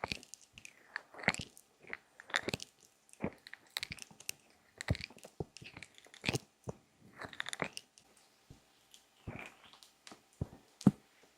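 Close-miked ASMR ear massage: fingers rubbing, pressing and tapping on a binaural microphone's ears, giving irregular crunchy crackles and short rubs.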